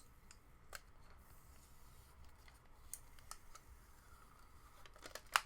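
Fingernail picking at a sticker label on a small plastic earbud charging case, making faint scattered clicks and light scratching, with the sharpest clicks near the end.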